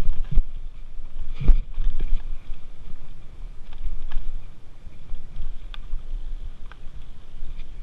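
Mountain bike rolling fast down a dirt singletrack: a steady low rumble from the tyres and bike, scattered rattling clicks, and a sharp knock about one and a half seconds in.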